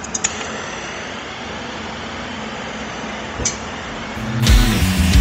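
Steady background hiss with a few light clicks, then a short pop about three and a half seconds in as a long-handled gas torch is lit to reheat the cast axle housing before welding. Loud background music with a heavy beat cuts in near the end.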